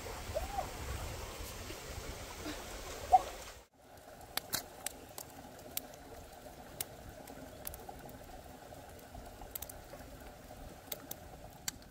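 Big catfish grilling over an open fire: irregular sharp crackles and pops over a steady low sizzle, starting after a sudden cut about four seconds in. Before the cut, a different outdoor scene with a few short high calls and one loud sharp knock.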